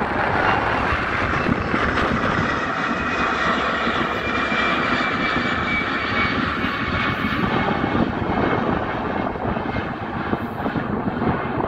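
Airbus A320-200 jet engines climbing out after takeoff: a steady jet rumble with a thin high whine, easing slightly near the end as the aircraft moves away.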